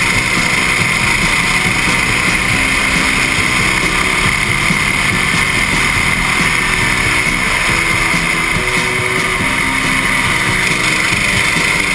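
Go-kart engine running at speed, heard from onboard the kart, with wind rushing over the camera microphone; a steady, loud drone.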